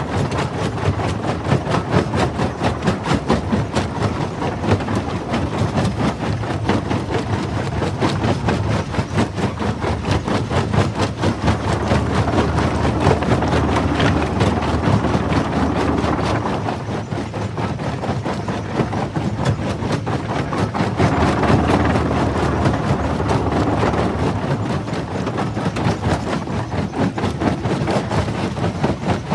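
Stone jaw crusher running and crushing rock: a continuous heavy mechanical rumble and grinding with a fast, even pulsing, swelling louder twice as the load changes.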